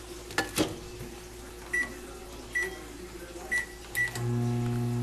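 Microwave oven being set going: two latch clicks as the door shuts, four short keypad beeps, then the oven starts up with a steady low hum a little after four seconds in.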